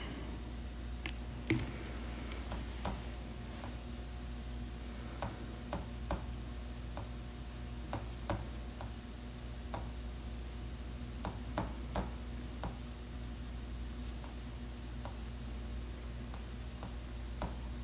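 Quiet steady room hum with irregular faint taps and clicks of a paintbrush dabbing oil paint onto a canvas panel.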